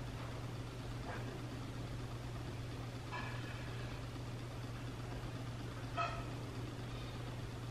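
Room ambience: a steady low hum under a soft, even hiss. Two short, high chirps or squeaks come about three and six seconds in.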